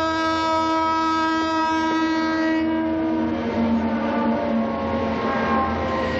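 Passing train from a sound-effects recording: its horn sounds steadily, then drops in pitch and fades about three seconds in as the rumble of the rolling train takes over.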